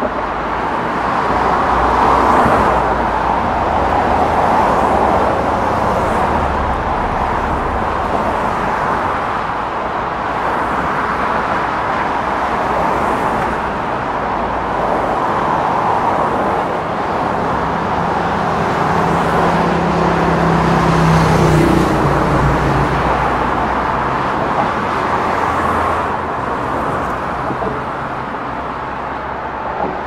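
Road traffic on a busy causeway: cars passing in a steady stream, their tyre and engine noise swelling and fading every few seconds. For a few seconds about two-thirds of the way through, one vehicle's low engine hum stands out and rises a little before it fades.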